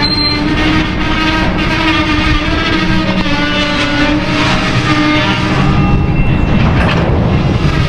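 Freight train of open-top hopper cars rolling slowly past at close range: a steady rumble of steel wheels on rail with a continuous metallic squeal over it.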